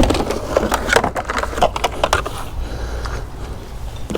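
Junk being handled and shifted in a kerbside scrap pile: an irregular string of knocks, clicks and scrapes over a low steady rumble.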